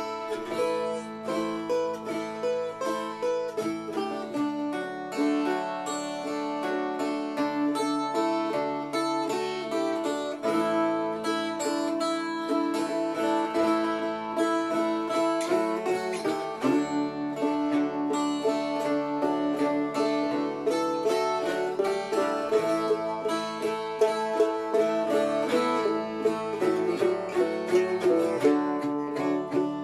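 A dulcimer and a bouzouki played together in a folk jam: quick, evenly paced picked and strummed notes over a steady drone.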